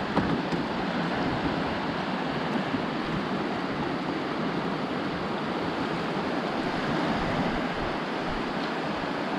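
Small surf washing in over the shallows at the water's edge, a steady hiss of breaking and receding waves, with wind buffeting the microphone.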